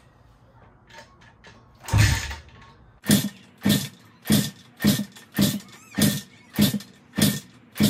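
Pit bike's Piranha 140cc single-cylinder engine being kicked over on the kickstarter for a compression test, turning over without firing: one heavy thump about two seconds in, then a steady run of about eight quick kicks roughly 0.6 s apart.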